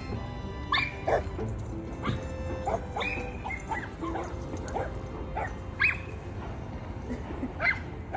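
Dogs barking and yipping: about ten short, sharp barks at irregular intervals, from more than one dog.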